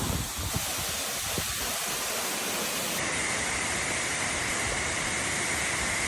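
Steady rush of a waterfall, a dense even hiss of falling water. About halfway through it shifts to a brighter hiss.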